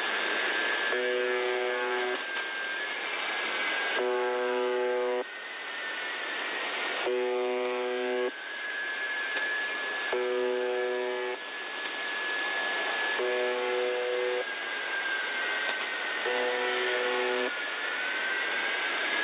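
Shortwave station UVB-76, 'The Buzzer', received on 4625 kHz in upper sideband: a harsh buzz tone about a second long, repeating about every three seconds over a hiss of static. Behind it a thin whistle-like tone wavers and drifts slowly in pitch, rising near the end; this is the oddity heard on the frequency.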